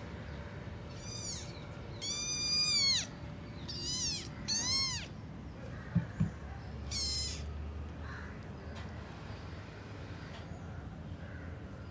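Kittens mewing: about five high-pitched cries that rise and fall in pitch, the longest and loudest about two seconds in. Two sharp taps come just past the middle.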